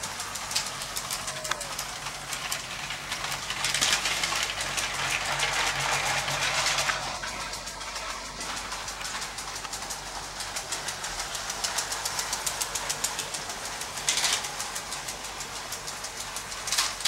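LEGO 12V electric train running along plastic track: a steady motor hum with rapid clicking of the wheels over the rail joints. It is louder from about four to seven seconds in.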